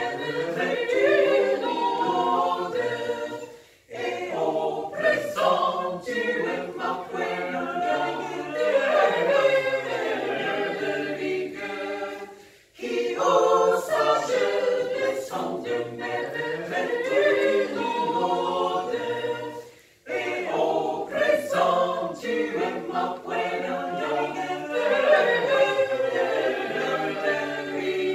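Mixed choir of women's and men's voices singing unaccompanied in several parts. The singing breaks off briefly between phrases, about 4, 13 and 20 seconds in.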